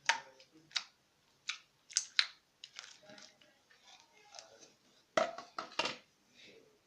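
Slime being squeezed and pulled by hand, giving a string of irregular sharp wet pops and crackles, loudest in a quick cluster near the end.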